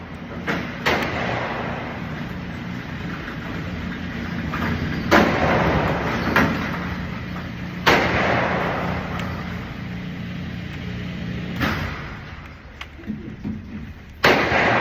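Gunshots fired at irregular intervals, about seven in all, each followed by a long fading echo, over a steady low hum.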